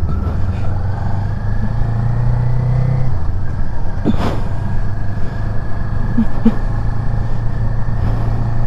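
Kawasaki Ninja 400's parallel-twin engine running at low speed in slow traffic, its pitch dropping a little about three seconds in. A short sharp sound about four seconds in.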